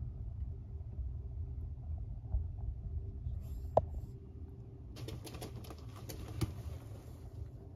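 A rat squeaks once, sharply, about four seconds in while it is held in a boa constrictor's coils. A patch of crackling and rustling in wood-chip bedding follows as the snake shifts around it, over a low steady hum.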